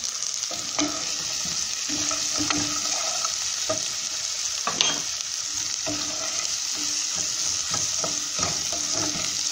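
Chopped onion and seasoning sizzling steadily in hot oil in a metal pot, stirred with a spoon that scrapes and knocks against the pot now and then.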